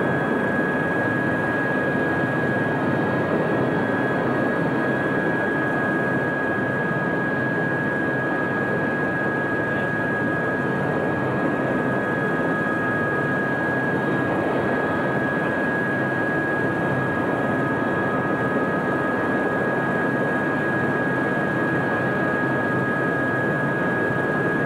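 Aérospatiale AS350B Squirrel helicopter's turbine engine running steadily: an even rushing noise with a steady, high whine, no rise or fall in pitch.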